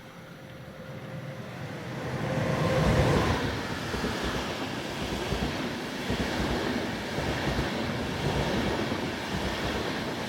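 Train passing by: a rolling rumble that swells about three seconds in and then runs on steadily.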